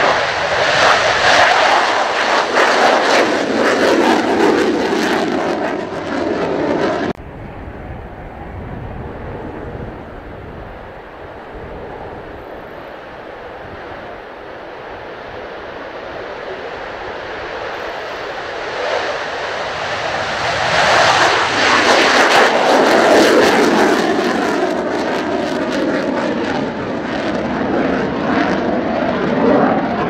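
Mitsubishi F-2 fighters taking off on afterburner, each one a loud, rough jet noise from its single F110 turbofan. The first is close and loud and cuts off abruptly about seven seconds in. The next is quieter as it rolls down the runway, builds to its loudest as it lifts off a little past twenty seconds, and stays loud as it climbs away.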